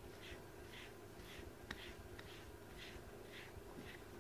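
Grooming brush stroked repeatedly through a cat's fur: faint, soft swishes about two a second, with one small click partway through.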